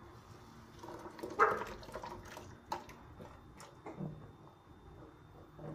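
Boiled soybeans draining in a metal strainer over a stainless steel sink: water dripping and splashing, with a few light knocks of the strainer, the loudest about a second and a half in.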